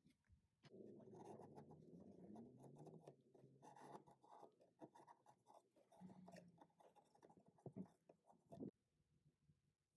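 Faint scraping and shaving as a wood chisel is pushed along a wooden walking stick, stripping the remaining bark and old varnish in strips. There are two sharper strokes near the end, and then the scraping stops.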